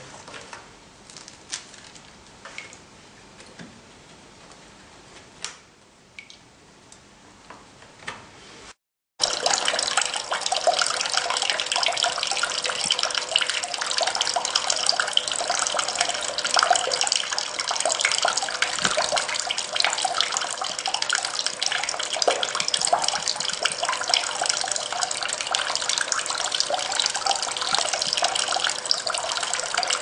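Small tabletop waterfall, its water lifted by a small pump, splashing steadily into its basin; the splashing starts suddenly about nine seconds in, after a brief silence. Before that there are only a few faint clicks and taps.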